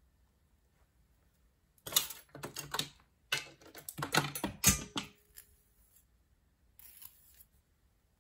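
Handling noise: a quick run of clicks and scraping for about three seconds, then a fainter patch near the end, as the wig and a comb are handled.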